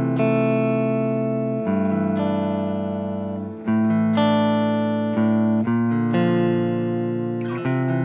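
Electric guitar played through a Fame Delay pedal: ringing chords struck one after another, changing about five times, each held until the next.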